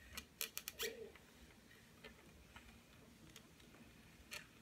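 Handling noise: a quick run of about five light clicks and taps in the first second, faint ticks after it, and one more click near the end, over near silence.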